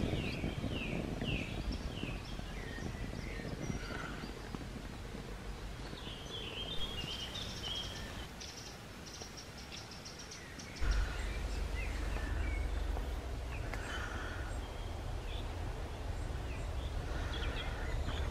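Woodland birds singing and chirping, many short calls and trills, over a steady low rumble that gets louder about eleven seconds in.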